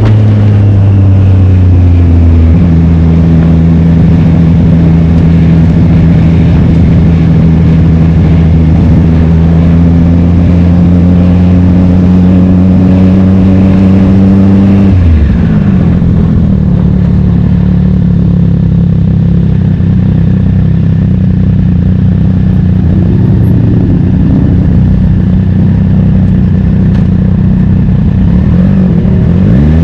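Racing motorcycle engine running hard at a constant pitch. About halfway through its note drops sharply and then holds steady again at lower revs. Near the end a brief rising-and-falling note from another engine passes.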